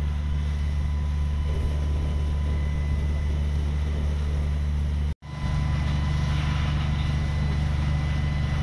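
Fire apparatus diesel engine running steadily, driving the pump that feeds the aerial ladder's water streams. The sound drops out for an instant a little past halfway.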